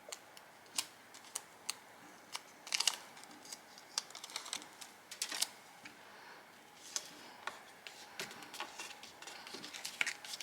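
Light, irregular clicks and taps of cut paper pieces and craft supplies being handled and set down on a worktable.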